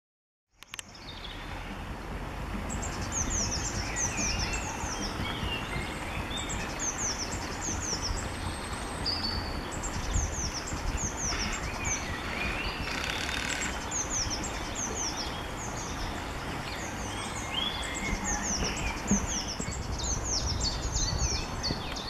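Birds singing over a brook: series of short, high, falling notes in repeated phrases, over a steady rush of flowing water and low wind rumble on the microphone. The sound starts about half a second in.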